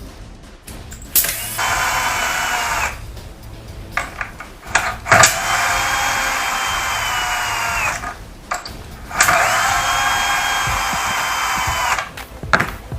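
Power drill running in three short bursts of about two to three seconds each, with the pitch rising as it spins up and sagging as it stops, most likely driving or removing screws while the squeaking pantograph mechanism is being repaired.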